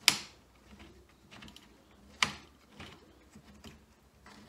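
Sharp clicks and light taps of metal hardware as bolts are turned by hand into threaded inserts in the side of a wooden seat box, fastening a pole strap bracket. Two louder clicks, one right at the start and one about two seconds in, with fainter irregular taps between.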